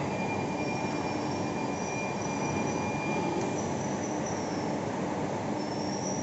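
100-ton hydraulic rubber moulding press running, its hydraulic power unit giving a steady mechanical hum with a faint high whine that comes and goes.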